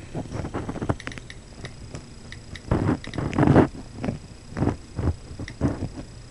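Irregular clicks and taps of typing on an iPod Touch's on-screen keyboard, with a few louder scuffs of the device being handled about three seconds in.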